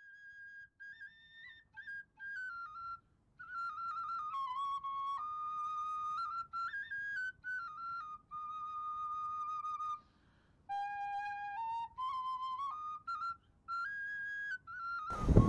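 Solo flute playing a slow melody, one held note at a time with short pauses between phrases. Just before the end a much louder, fuller passage cuts in.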